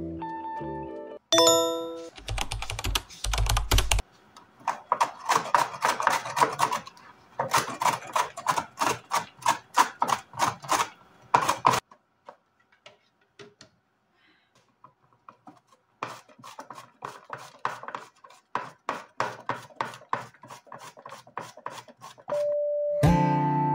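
A carrot, then a zucchini, grated on a flat stainless-steel grater: quick scraping strokes, about five a second, with a pause of a few seconds between the two. A short music passage plays about a second in, and music comes in near the end.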